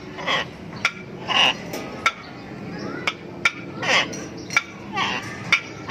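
Palm cockatoo mimicking the 'tokke' call of a tokay gecko: four short calls, each falling in pitch, mixed with sharp clicks.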